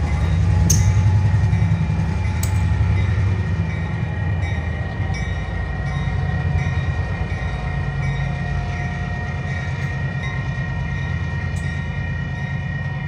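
Amtrak diesel locomotive with its train running by, the engine giving a steady low drone that is loudest about a second in and slowly eases off, with a few sharp clicks from the wheels.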